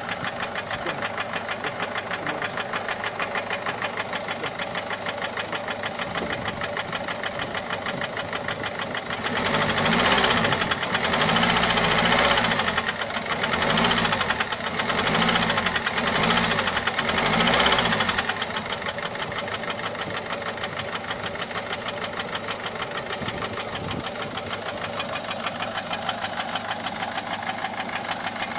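Peugeot 407 1.6 HDi four-cylinder diesel idling with an unusual knocking noise. It is blipped up several times in quick succession, starting about a third of the way in, then drops back to idle. The mechanic suspects worn cam followers or camshaft, possibly piston damage.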